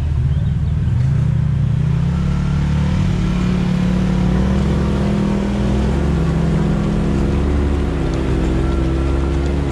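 Can-Am Maverick X3 turbo side-by-side's turbocharged three-cylinder engine running as it drives through a muddy creek, its pitch rising over the first couple of seconds and then holding steady. A second off-road engine, wavering in pitch, joins over the back half as a rail buggy wades past close by.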